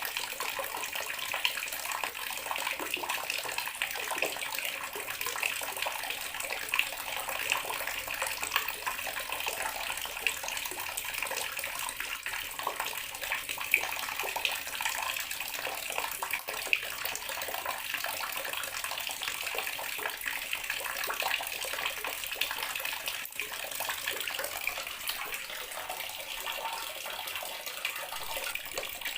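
Bathroom water tap running steadily, the stream splashing into the basin or tub below.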